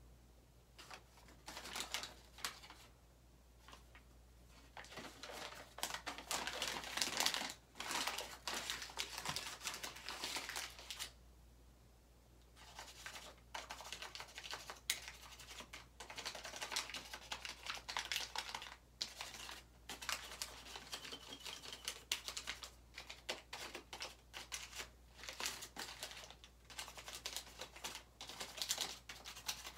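Fingers rubbing a small object held in the hands, giving a close, irregular crackling and scratching that stops briefly twice.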